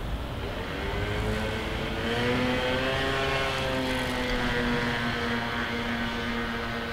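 Street traffic with cars driving past. An engine hum rises in pitch over the first few seconds, then settles into a steady tone over a low rumble.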